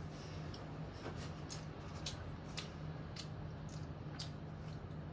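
A child chewing bread, with small sharp crunching clicks about twice a second over a steady low hum.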